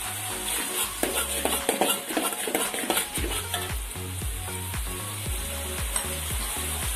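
Metal spatula stirring and scraping thick sambal with potato pieces around a wok, over a steady sizzle. The scraping is busiest in the first three seconds, then it slows.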